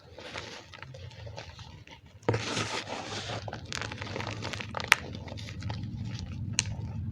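Gym chalk mixed with cornstarch being squeezed and crushed, a dense crunching and crumbling with many small crackles. It gets suddenly louder about two seconds in, with a sharp click or two later on.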